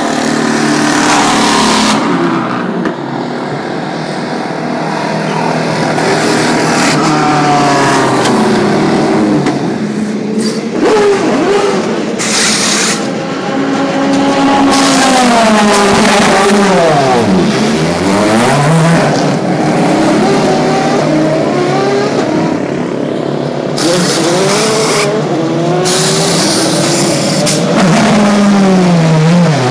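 DTM race cars' V8 engines running in the pit lane, several at once. The pitch of passing cars sweeps down and back up, most clearly about halfway through and again at the end.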